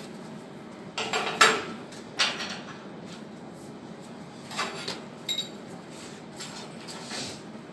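Steel pieces clanking and scraping together as they are worked: a handful of irregular metal knocks and rattles. The loudest comes a bit over a second in.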